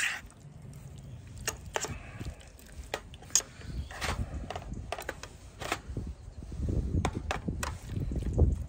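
A utensil clicking and scraping in a frying pan as pieces of fish are broken up while they cook: irregular sharp clicks over a low rumble.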